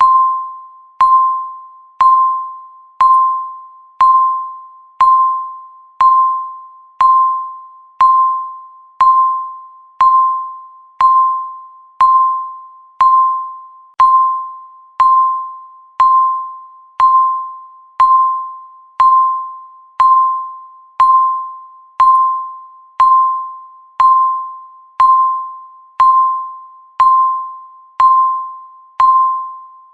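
Countdown timer beeps: one electronic beep each second, a single mid-pitched tone struck sharply and fading away before the next, marking each second left on the timer.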